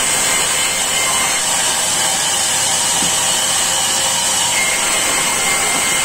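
A sawmill band saw running and ripping a wooden plank as it is fed through the blade: a steady, unbroken cutting noise with a faint high whine.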